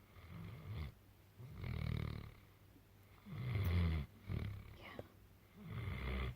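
Loud snoring from someone asleep: about four low, rough snores, each under a second long, coming every one and a half to two seconds.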